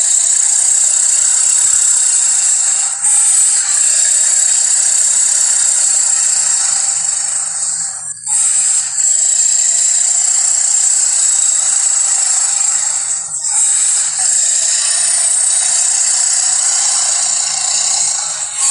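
Harsh, rasping monster growl sound effect, made from big-cat and beast growls, running in long, loud, gritty stretches broken by brief gaps about three, eight and thirteen seconds in.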